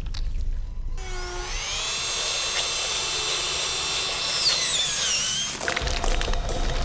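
A power drill spinning up to a steady high-pitched whine, then its pitch falling and wavering before it cuts off, over a low rumble.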